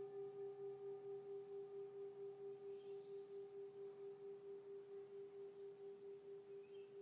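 A singing bowl's long ringing tone slowly dying away, with an even pulsing wobble. Its higher overtones have mostly faded, leaving the one main note.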